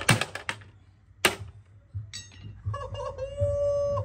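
A few sharp plastic clicks and knocks from the latch and casing of a plastic ATM cash box being handled. About two seconds in, a louder high, drawn-out voice-like sound begins, wavering and then held on one note.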